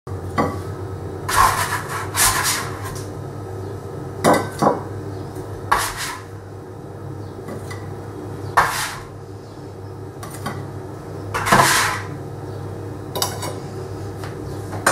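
Slotted metal spatula scraping across a metal baking tray and clinking down on a ceramic plate as hot scones are lifted across, a series of separate scrapes and clinks a second or more apart. A steady low hum runs underneath.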